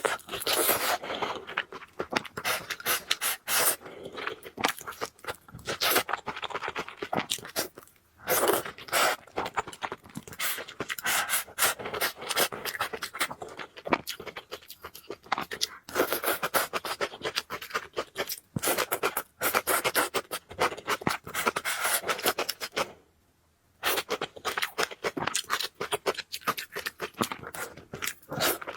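Close-miked eating: noodles being chewed and slurped, with wet, clicky mouth noises in runs of a few seconds and two brief pauses.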